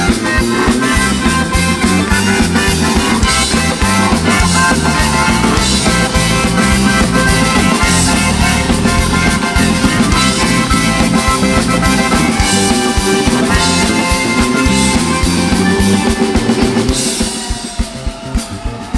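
Live rock band playing an instrumental passage: bayan (button accordion) over bass guitar and drum kit. Near the end the full band drops away, leaving a sparser beat of drum hits.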